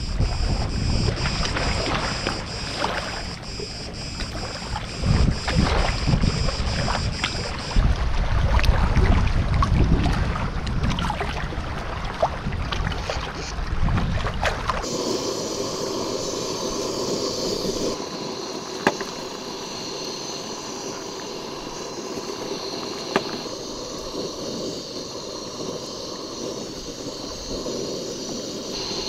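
Shallow sea water splashing and lapping among shoreline rocks, with gusts of wind on the microphone. About halfway through it gives way to a steady hiss from a camping gas stove with water boiling in a small pot, broken by two light clicks.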